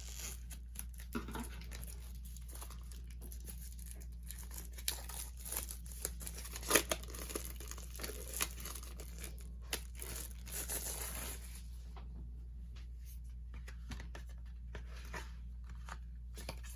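A CD album's packaging being torn and crinkled open by hand, with scattered clicks and rustles of handling. The rustling dies down about twelve seconds in, leaving only a few small clicks.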